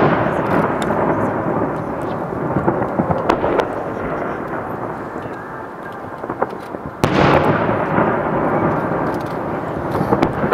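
Aerial firework shells bursting: a heavy boom at the start and another about seven seconds in, each followed by a long rolling rumble, with a few smaller sharp pops in between.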